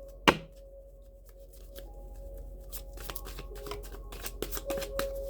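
A deck of tarot cards being handled and shuffled: one sharp card snap just after the start, then a run of quick small clicks as the cards are riffled. Soft ambient music with steady held tones plays underneath.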